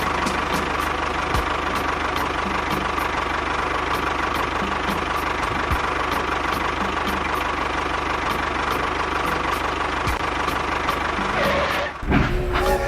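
Small motor of a homemade miniature tractor running steadily, an even mechanical whir with a steady whine and faint regular ticking about three times a second; it cuts off near the end.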